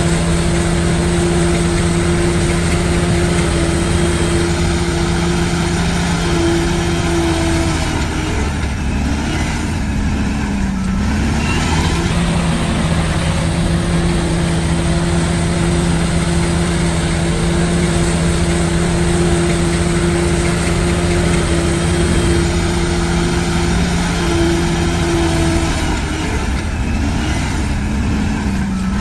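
Heavy diesel engine of construction machinery running at a steady pitch, its note dipping and coming back up twice: about ten seconds in and near the end.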